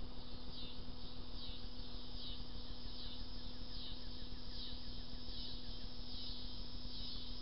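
An insect chirping in an even rhythm: a short buzzy chirp repeated a little faster than once a second, over a faint steady hum.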